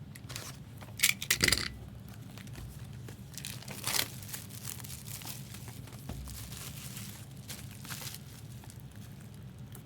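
Foil trading-card pack wrappers crinkling and tearing as packs are opened, in short bursts, the loudest about a second in and another near four seconds.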